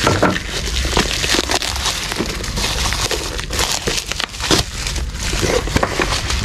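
Blue plastic bubble-wrap packaging crinkling and rustling as it is cut and torn open by hand: a dense, irregular run of crackles.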